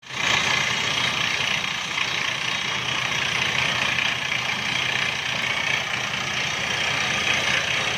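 FYX200 water-well drilling rig with its 55 kW engine running steadily, a constant machine noise with a low hum underneath.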